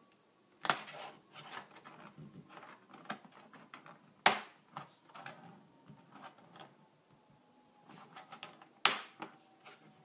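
Plastic clip tabs of a Dell Inspiron laptop's bottom access plate popping free as the plate is pried up: three sharp snaps, about a second in, in the middle (the loudest) and near the end, with small clicks and scraping of fingers on the plastic in between.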